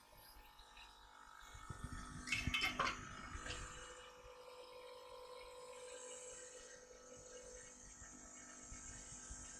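A few quick clicks and rattles of small tools being handled, over a faint steady hum and a soft high hiss.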